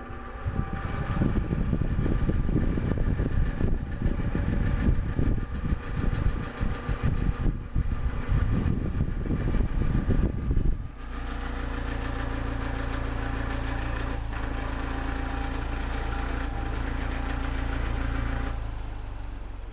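Vintage 1960s Philips electric fan running. For the first ten seconds or so its airflow buffets the microphone with an uneven rumble. After that comes a steady motor hum, which fades near the end.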